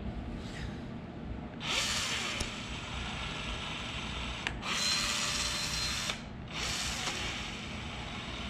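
Cordless caulking gun's motor whirring in three runs of a few seconds each, with short pauses between, as it pushes Betaseal U418 urethane adhesive out of the tube. The first run starts about two seconds in.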